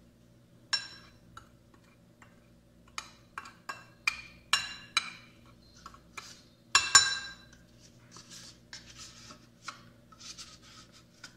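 Metal spoon clinking against a ceramic plate and small ceramic bowls while dry spice powders are stirred together: a string of sharp, ringing clinks, loudest about seven seconds in, followed by softer scraping near the end.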